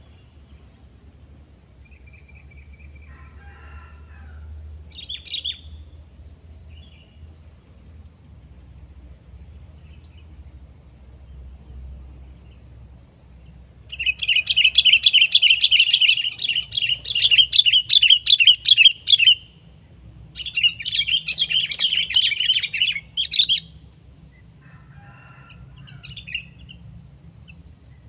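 Sooty-headed bulbul (kutilang) song: fast, chattering phrases in two long, loud bursts about halfway through, with a few shorter calls before and after.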